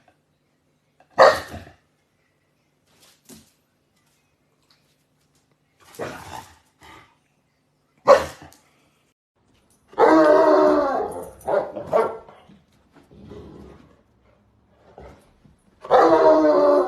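A dog barking: single short barks a few seconds apart, then two longer, louder bouts of barking, the second near the end.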